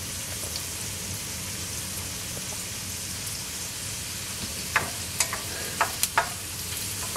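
Chopped onions and pine nuts sizzling in olive oil in a stainless steel skillet over high heat, a steady hiss. In the second half come a few sharp clicks.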